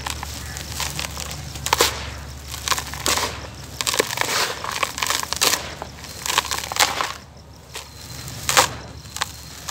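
Dry, gritty dirt being scooped up by hand, crumbled and poured back into a tub: a grainy crunching hiss with irregular sharper crunches. There is a quieter spell about seven seconds in, then one loud crunch.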